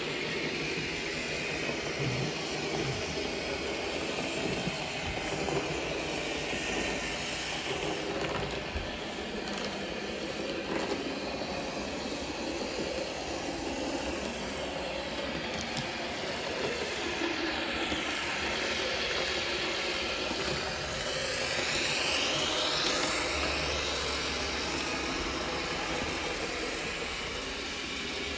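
H0 scale model train running on the layout: a steady rail-vehicle running sound, with a brief sweep up and down in pitch about three-quarters of the way through.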